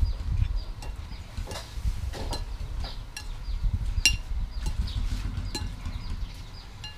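Chopsticks and a metal spoon stirring noodles in a ceramic bowl, clinking against the rim now and then, with the sharpest clink about four seconds in, over a low rumble.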